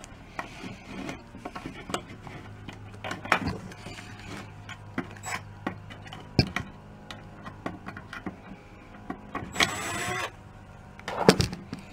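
Cordless drill/driver whirring briefly about ten seconds in, with a second short burst just after, as it backs a screw out of a wooden snare drum shell. Around it are scattered clicks and knocks of the shell and its metal hardware being handled.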